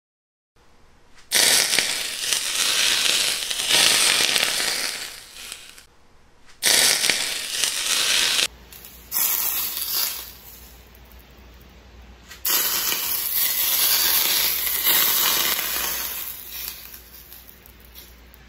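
Smoking-hot cooking oil ladled over a heap of shredded green onions on steamed rockfish, hissing and crackling loudly. It comes in four pours, each sizzle starting suddenly and fading over a few seconds.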